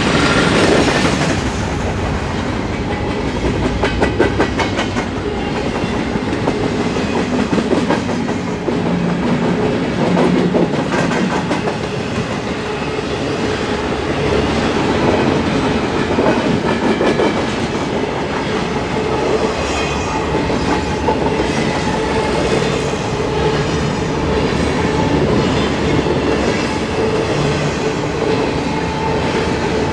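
Freight train's cars rolling past at speed, a continuous rumble with the wheels clacking over rail joints.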